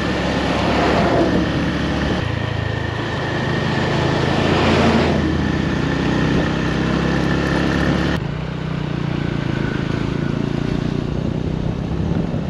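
Honda CB150 motorbike riding at road speed, its single-cylinder engine a steady drone under wind and road noise. An oncoming truck passes about five seconds in, with a swell of noise that then fades.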